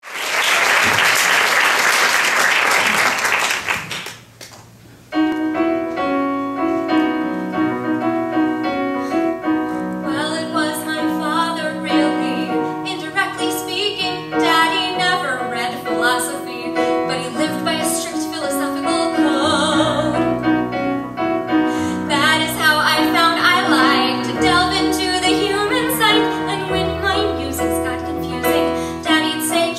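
Audience applause for about the first four seconds, then a piano introduction and a woman singing a musical-theatre song to piano accompaniment.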